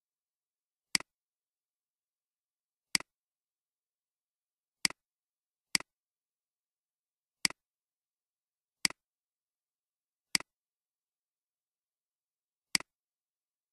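Computer mouse clicks, eight of them spaced irregularly one to two and a half seconds apart. Each is a sharp click followed at once by a fainter second click, with dead silence between.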